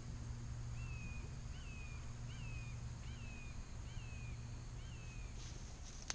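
A bird calling: six short whistled notes in an even series, each rising quickly then sliding down, over a steady low hum. A few sharp clicks come near the end.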